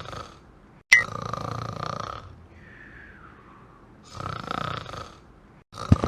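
Cartoon snoring sound effect: a loud snore every few seconds, with a faint falling whistle in between.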